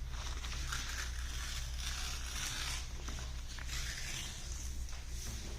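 A sheet of paper being torn by hand along a folded crease, in about three long rips, to cut off the excess strip and leave a square.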